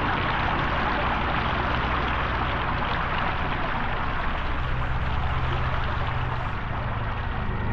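Steady rushing noise of pouring, streaming water, with a faint low hum beneath it.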